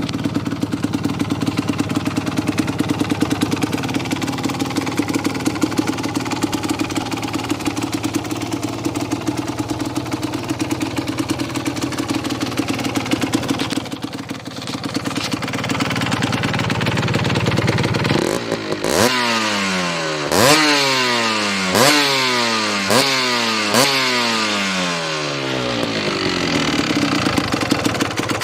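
Kawasaki KMX 125's two-stroke single-cylinder engine through a Gianelli end silencer, idling steadily. About two-thirds of the way through it is blipped up sharply about five times, each rev sliding back down, then it settles to idle again. The silencer has been burned out and freshly repacked, and its weld-in restrictor has been removed.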